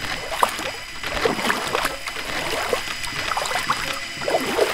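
Water trickling and bubbling in a filled tank, a steady run of small gurgles and plops.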